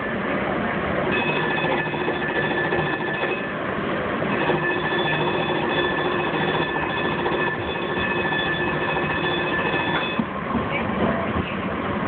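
Muni light-rail vehicle running, heard from inside the car: steady rumbling running noise with a high-pitched whine that comes and goes, dropping out about ten seconds in.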